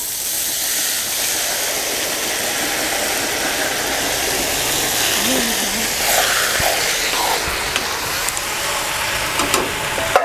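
Boiled white peas and their liquid hitting hot oil and fried masala in a pan, sizzling and hissing steadily. From about six seconds in, a few short clinks and scrapes of the stirring spoon.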